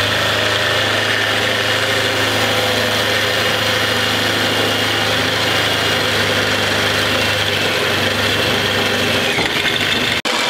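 Corded electric drill running steadily under load, its 5/8-inch bit boring through a metal bracket. The run breaks off briefly near the end.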